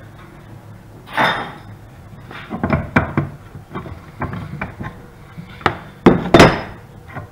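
Metal clinks and clicks of an adjustable wrench working the nut off the end of a wood lathe's pulley shaft, followed near the end by a few loud metal clanks as tools are handled on the bench.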